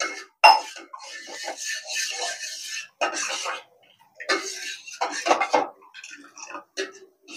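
Steel spoon stirring milk and cooked sago in a steel pot, scraping and clinking against the pot's sides and bottom in several short bouts.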